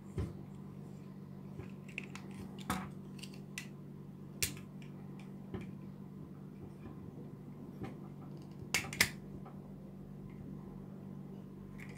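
Plastic joints and parts of a Papa Toys PPT-02 Fire Engine transforming figure clicking and snapping as it is folded from vehicle into robot mode: irregular short clicks, with a close pair about nine seconds in the loudest.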